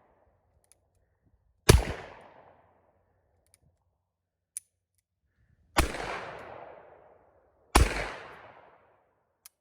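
.44 Magnum gunshots: three single shots, the first alone and the last two about two seconds apart, each echoing away over nearly a second. Faint clicks fall between them.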